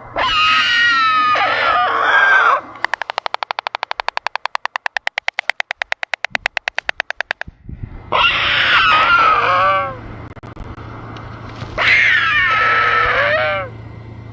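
White stork bill-clattering: a fast, even rattle of about a dozen clacks a second, lasting some four seconds in the middle. Before and after it come three loud drawn-out calls of another bird, each about two seconds long with the pitch falling at the end.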